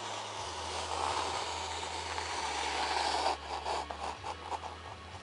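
Razor blade slicing through foam board along a steel ruler at a 45-degree bevel: a long scraping cut for about three seconds, then a quick run of short scratchy ticks.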